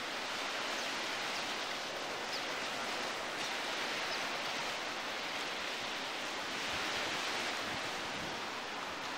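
Steady rushing hiss of ocean surf.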